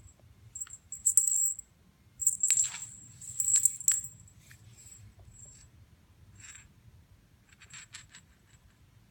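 Small jingle bell on a cat wand toy's string, jingling and clicking in bursts as the toy is shaken and pulled along the floor. It is loudest in two clusters in the first four seconds, then comes in fainter, shorter jingles.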